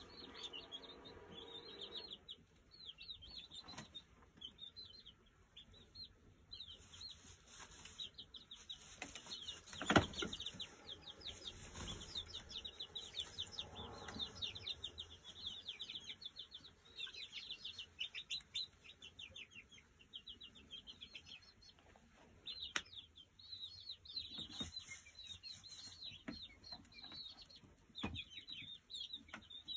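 Young pullets chirping and peeping continuously in quick, high notes. A sharp knock sounds about ten seconds in.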